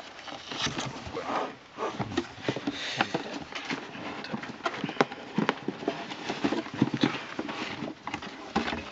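Cardboard box and packing being handled: rustling plastic wrap, foam and cardboard scraping, with irregular knocks and clatter as the foam and moulded end-cap insert is worked loose and lifted out.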